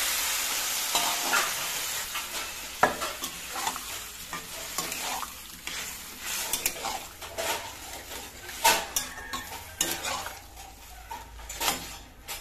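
Flat metal spatula stirring and scraping in a steel kadai, with short clinks against the pan. Cooked vegetables and their liquid sizzle in the hot masala; the sizzle fades over the first few seconds.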